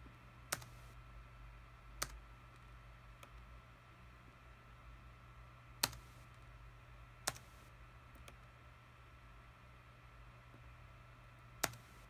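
Five sharp, isolated clicks of a computer mouse at irregular spacing, over a faint steady hum.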